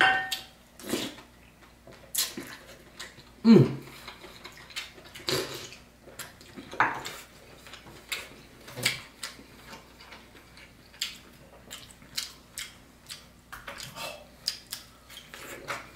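Close-up eating sounds: chewing and mouth noises, with a spoon and fork clicking against a ceramic bowl now and then, as scattered short clicks and a few brief low mouth sounds.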